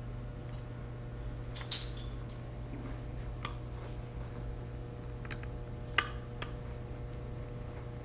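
A small magnetic-tip Phillips screwdriver and a tiny metal screw being fitted into an M.2 NVMe SSD's mounting hole: several light, sharp metallic clicks, the loudest about six seconds in, over a steady low hum.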